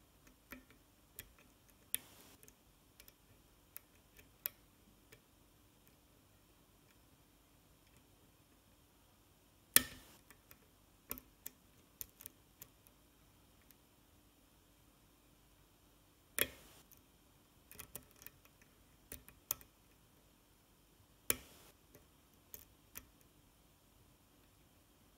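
Single-pin picking of an oval pin-tumbler cylinder lock with a hook pick and tension wrench: faint, sparse sharp clicks from the pick and pins, three louder ones several seconds apart, with quiet gaps between.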